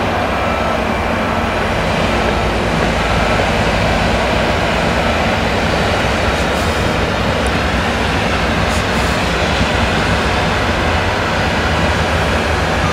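New Holland CX combine harvester working in maize with an eight-row Geringhoff corn header: a steady, loud drone of the engine and threshing machinery under load, with the rush of the header taking in the stalks.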